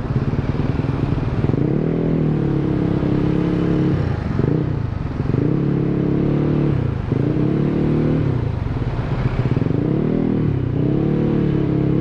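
Yamaha X-Ride scooter engine running through a Tekamoto Trioval aftermarket silencer while ridden in slow traffic. Its pitch rises and falls every couple of seconds as the throttle is opened and eased off.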